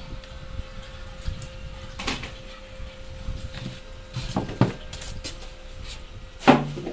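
A series of knocks and clunks from objects being handled, the loudest near the end, over a faint steady hum.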